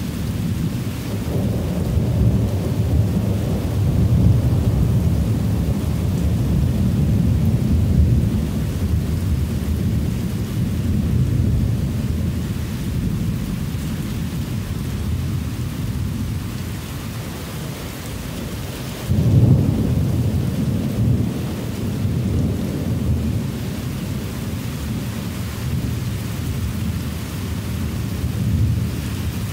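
Near-continuous thunder rumbling during a heavy rainstorm, with a sudden louder clap about two-thirds of the way through. Rain hisses steadily underneath.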